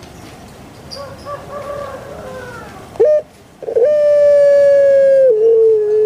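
Puter pelung, a long-calling breed of Barbary dove (Streptopelia risoria), calling. Soft low coos are followed by a short sharp note about three seconds in. Then comes one loud long drawn-out note that steps down in pitch about five seconds in.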